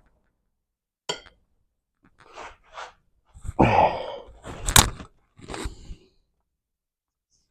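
Wrench working the tight 14 mm bolts on a Mazda M5R1 manual transmission case: clicks and scrapes, then a sharp crack a little before five seconds in as a bolt breaks loose. A strained breath comes just before the crack.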